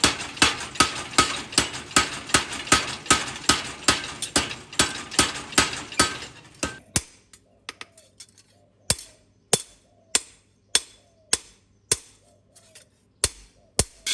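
Hammer striking steel on an anvil while forging a sickle blade: quick, even blows about three a second, which slow after about seven seconds to sparser, separate strikes with a short ring.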